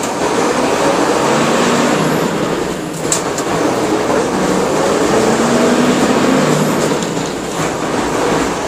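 Mercedes-Benz OM-366LA turbo-diesel engine of an OF-1721 bus pulling under load, its revs climbing. The revs dip briefly about three seconds in, then climb again and ease off near the end.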